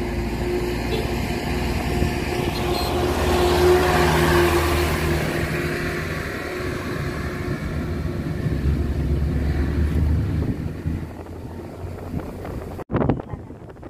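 Steady road and engine noise of a moving car, heard from inside the cabin, with a hum running through it; it swells about four seconds in. Near the end it cuts off abruptly and gives way to wind buffeting the microphone.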